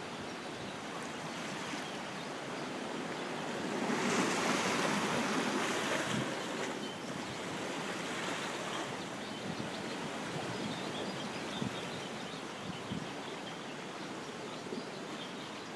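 Sea water washing and lapping against the rocks of a cove, a steady wash that swells louder about four seconds in and eases off a couple of seconds later.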